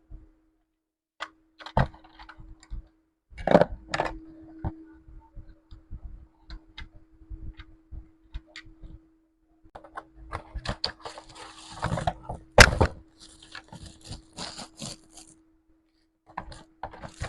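Unboxing handling noise from a mini wireless keyboard and mouse set: scattered clicks and knocks as the box and parts are handled, a stretch of packaging rustling in the middle, and one sharp knock about two-thirds through. A faint steady hum runs underneath.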